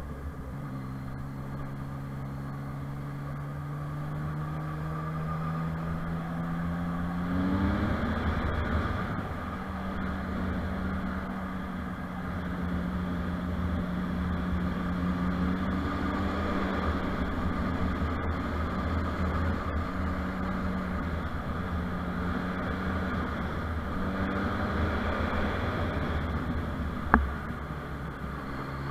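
Motorcycle engine under way, its revs climbing steadily for the first seven seconds or so, then running at a fairly even pitch with brief dips as the throttle eases. A single sharp click sounds near the end.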